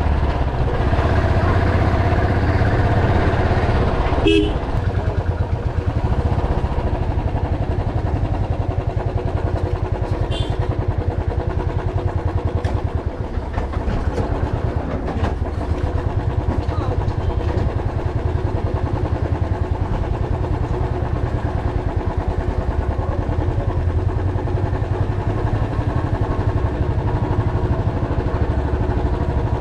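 Motorcycle engine running steadily while riding. There is a brief sharp sound about four seconds in.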